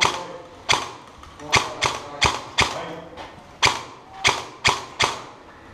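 Airsoft gunfire: about ten single sharp shots at an irregular pace, some in quick pairs.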